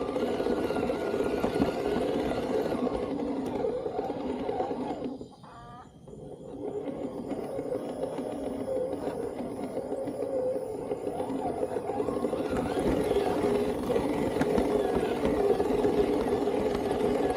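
Toyota Tacoma RC truck's electric motor and geared drivetrain running with a wavering whine. It cuts out briefly about five seconds in, then picks up again.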